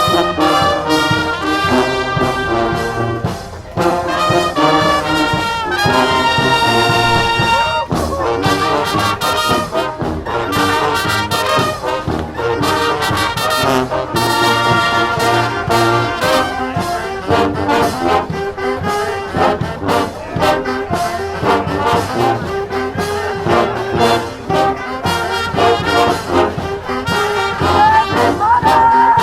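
A street marching band playing live, with trombones, trumpets and other brass over drums keeping a steady beat.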